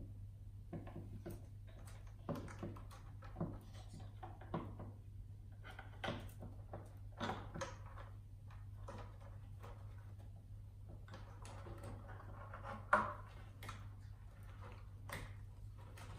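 Scattered light clicks, knocks and rustles of hands setting a computer motherboard into the metal chassis of an all-in-one PC and handling its parts, with the sharpest knock about thirteen seconds in. A steady low hum runs underneath.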